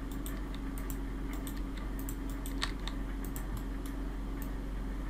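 Computer keyboard keys and mouse buttons clicking irregularly, several a second, over a steady low electrical hum.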